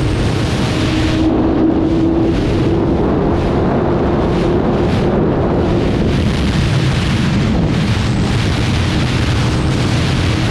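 BMW S1000RR's inline-four engine running under way, with wind rushing over the microphone. The engine note holds steady through the first half and shifts in pitch in the second half.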